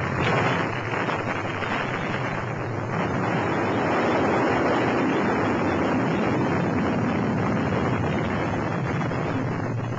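Lance missile launching: a sudden loud rumbling roar that runs on steadily as the blast rumble of a nuclear explosion.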